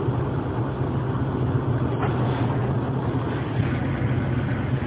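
A steady low hum and hiss of background noise heard over a phone line, with no voice in it.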